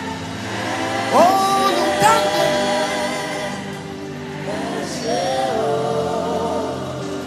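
Gospel worship music with sustained group singing, and a lead voice sweeping up into a held "Oh" about a second in.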